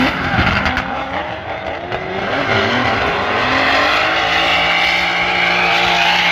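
Two drift cars in a tandem run, their engines revving up and down while the rear tyres squeal against the asphalt in a continuous screech.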